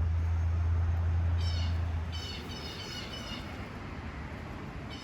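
A small wild songbird sings a quick run of repeated high chirps, about five notes a second, and a few more near the end. Under it, a low steady hum fades away about two seconds in.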